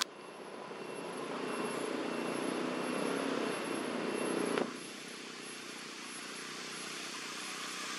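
Distant engine drone, like a passing aircraft or vehicle, swelling over about four seconds and cutting off suddenly about halfway through, leaving a fainter steady background hiss.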